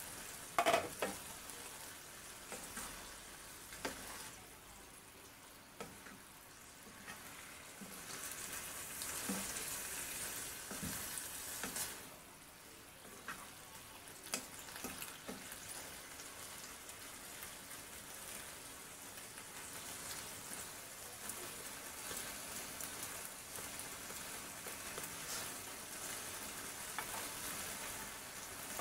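Cabbage, carrots and green beans sizzling in a frying pan as a wooden spatula stirs and scrapes through them. A sharp knock about a second in, as the glass lid comes off the pan.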